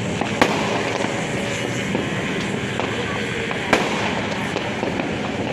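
Many New Year's Eve fireworks and firecrackers going off at once: a continuous crackling din, with two sharper bangs, one about half a second in and one after nearly four seconds.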